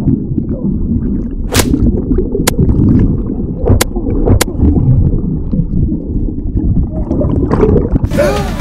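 Muffled underwater sound from a camera held under the water of a swimming pool: a low churning rumble of water and bubbles, with a few sharp clicks. Near the end the camera breaks the surface and the full, bright sound of splashing water comes back suddenly.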